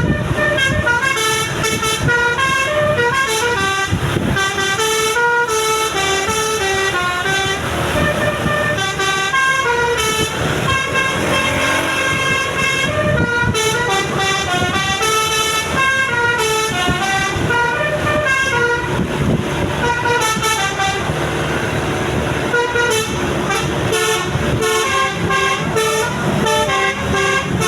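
Bus 'telolet basuri' musical air horn playing a continuous tune, its notes stepping up and down.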